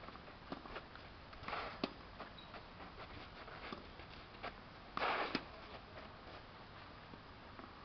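Tennis rally on a clay court: shoes scrape and slide on the clay twice, about one and a half and five seconds in. Scattered sharp knocks of the ball off racket and court run through it.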